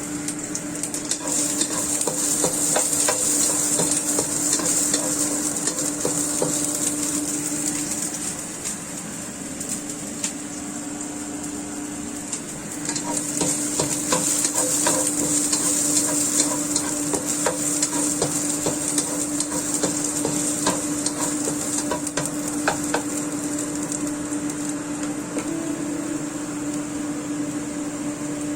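Food sizzling as it fries in a pan, with a utensil stirring and scraping in scattered clicks over a steady low hum. The sizzle eases for a few seconds about a third of the way in, then picks up again.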